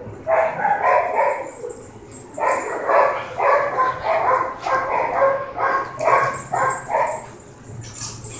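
Dogs giving rapid, repeated short vocal sounds while tugging on a rope toy in play, about three a second. There is a brief run near the start and a longer run from a couple of seconds in until near the end.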